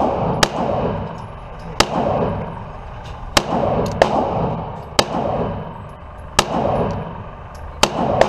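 Gunshots at a shooting range: about eight sharp, irregularly spaced shots, each followed by a ringing echo.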